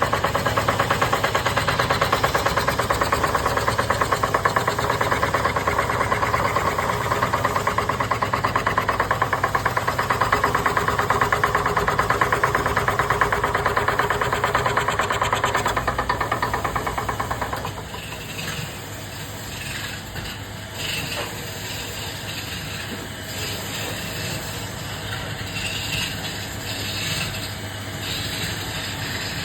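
Woodworking machine running with a steady, rapid pulsing, dropping suddenly to a quieter hiss with scattered clicks about 18 seconds in.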